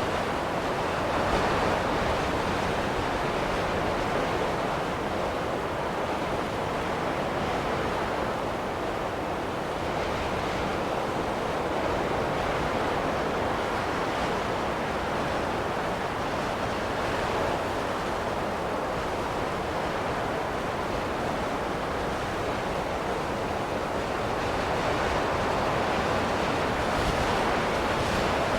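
Wind blowing through a snowy landscape: a steady rushing noise that swells and eases slowly every several seconds.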